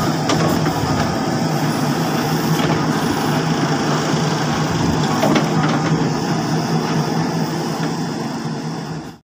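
Case 770FX Plus backhoe loader's diesel engine running steadily while the backhoe arm digs gravel, with a few faint knocks from the bucket and arm. The sound cuts off suddenly near the end.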